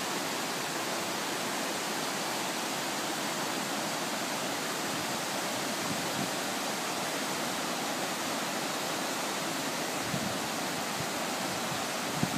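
Steady rush of a river's water pouring down small cascades and over granite ledges, an even hiss with no let-up.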